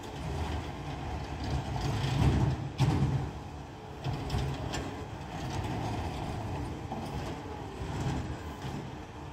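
Peterbilt 520 McNeilus ZR garbage truck's engine running with a low rumble, building up louder about two seconds in, with a sharp bang just before three seconds, then settling back to a steady rumble.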